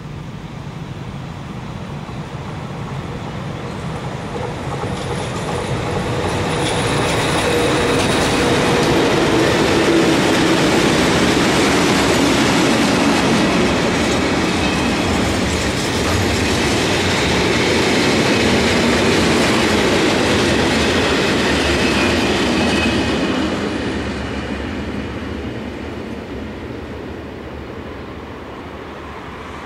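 Freight train of tank wagons behind an electric locomotive passing close by, its wheels running along the rails. The sound builds over the first ten seconds, stays loud for about twelve seconds, then fades as the last wagons move away.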